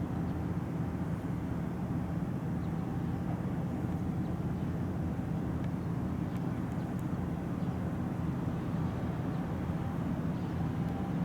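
Steady low drone of a ferry's diesel engines running at a constant speed.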